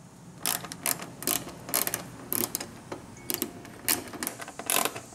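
Small hand ratchet with a Torx socket clicking in short repeated bursts, about two a second, as it is swung back and forth to back out bolts.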